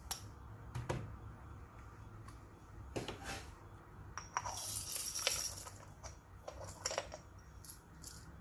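Sharp metallic clinks and taps from a metal hand coffee grinder being handled, with a brief denser rattle about halfway through.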